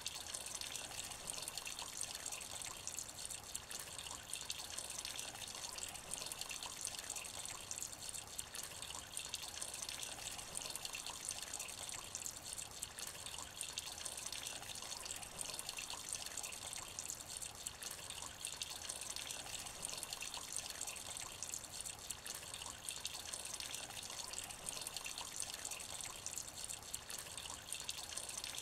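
Light rain falling into a shallow puddle: a steady patter of many small drops splashing into water.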